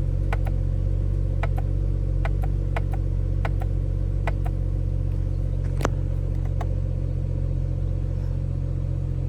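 BMW 335i inline-six engine idling steadily, while the newly fitted steering-wheel shift paddles are pulled repeatedly, giving a dozen or so sharp clicks, many in quick pairs, one louder near six seconds in.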